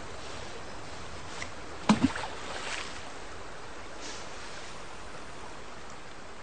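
Steady outdoor hiss of wind or running water, broken about two seconds in by two sharp knocks close together, then a few faint rustling swishes.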